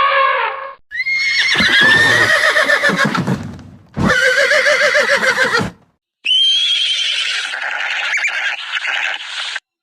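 Horse whinnying: a long whinny starting about a second in that falls and shakes in pitch, then a second whinny about four seconds in, followed by a higher, longer wavering call.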